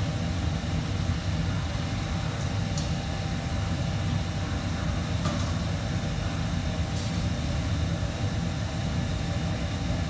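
Steady low rumble and hiss of commercial kitchen ventilation running, with a few faint clicks of utensils about three, five and seven seconds in.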